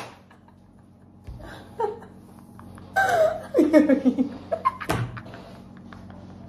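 Two women laughing, loudest about three seconds in. There is a sharp knock at the start and another about five seconds in.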